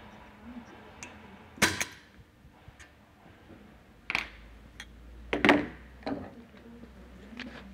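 A handful of sharp metallic clicks and clacks as circlip pliers work the lock ring off a centrifugal pump shaft behind its ball bearing and the pliers are handled away, the loudest about five and a half seconds in.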